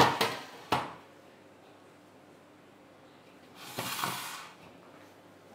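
Two knocks of something being handled, the second about three quarters of a second after the first, then a brief rustling swell that rises and fades near four seconds in.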